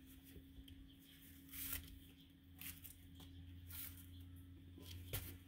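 Faint rustling as cotton and scrubby yarn is pulled across a tabletop to give slack, a few soft brushing sounds over a low steady hum.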